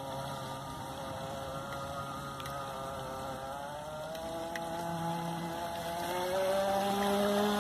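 Motor of a radio-controlled model speedboat running on the water. Its pitch sinks and rises with the throttle, and it grows louder near the end as the boat turns back toward the bank.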